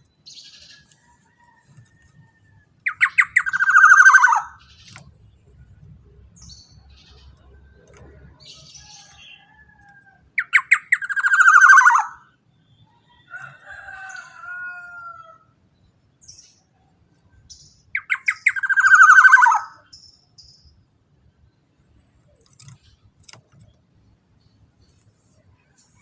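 Black-naped oriole (kepodang) giving three loud harsh calls about seven seconds apart. Each opens with a quick rattle and falls in pitch, and softer short calls come in between.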